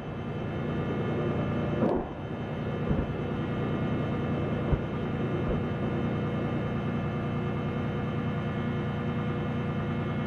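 Explosions of live rounds hitting the ground, a sharp blast about two seconds in followed by smaller thuds near three and five seconds, over a steady engine drone.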